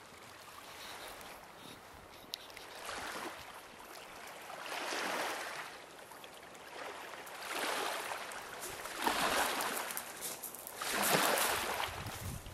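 Small waves washing in on a rocky shoreline, swelling and falling away roughly every two seconds, louder toward the end.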